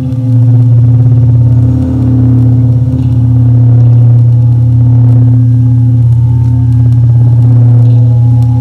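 Large brass singing bowl with steel bowls, a wooden stick worked around the rim, giving a loud, steady low drone with fainter higher overtones.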